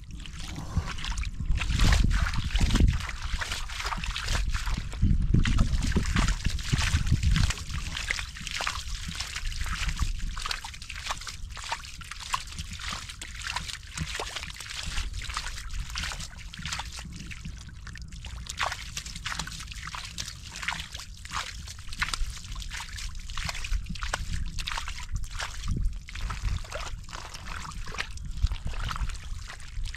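Hands sloshing and squelching through shallow muddy water, with many small irregular splashes and trickles, louder and heavier in the first several seconds.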